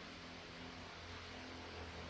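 Steady low hum and hiss of shop background noise, with no distinct mechanical strokes.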